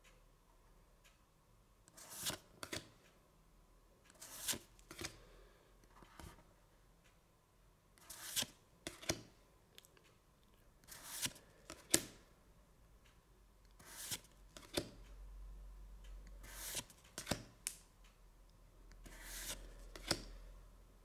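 Pokémon trading cards being handled one at a time: short papery swishes and flicks, often in pairs, every two to three seconds as each card is swapped out of the held stack.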